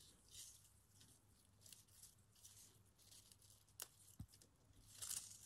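Faint rustling of Virginia creeper leaves and tendrils as fingers handle them and set them on a gel printing plate, with a couple of small clicks about four seconds in.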